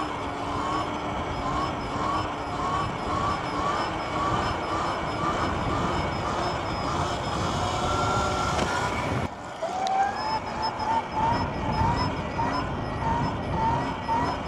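Wind and road noise while riding an electric dirt bike, with a short rising chirp repeating about one and a half times a second. The sound drops out briefly about nine seconds in, then the chirping resumes.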